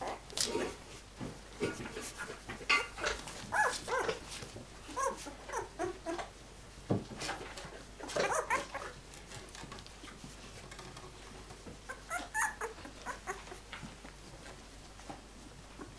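12-day-old flat-coated retriever puppies whimpering and yipping in short, high calls, many in quick succession for the first half, then fewer, with a brief cluster again near the end.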